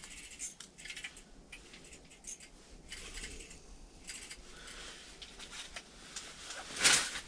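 Light clicks and rustles of ice-fishing rods and reels being handled, with one louder, sharp rustle near the end.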